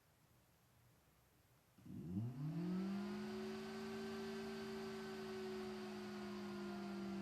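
Intel stock CPU cooler fan starting from rest about two seconds in: its hum rises quickly in pitch as it spins up, then settles into a steady hum with an airy hiss.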